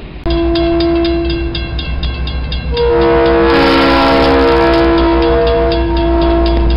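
A railroad grade-crossing bell rings rapidly, about six strokes a second, as a diesel locomotive sounds its air horn. A loud chord of several notes comes from about three seconds in, over the low rumble of the train.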